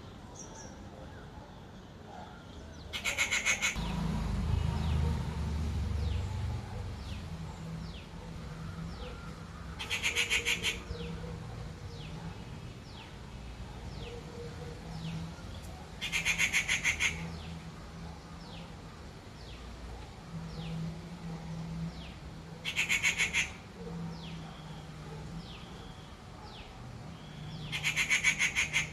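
Rufous treepie giving harsh, rapidly pulsed screeching calls, five of them spaced about six seconds apart. Faint short, high, falling notes sound between the calls.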